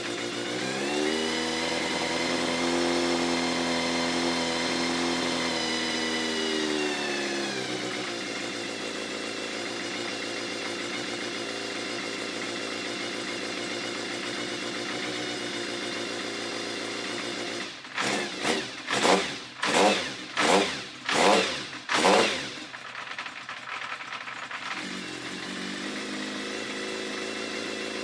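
Kawasaki Zephyr 750's air-cooled inline-four running just after starting: its idle climbs and holds high, then settles lower about eight seconds in. Past the middle come six quick throttle blips, each rising and falling, and then it goes back to a steady idle.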